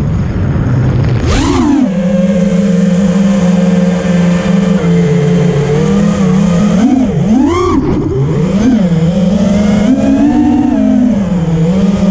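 Motors and propellers of a 5-inch FPV racing quad (T-motor F40 Pro II 2400kv motors) whining. The pitch holds steady for a while, then swoops up and down several times as the throttle is punched and cut.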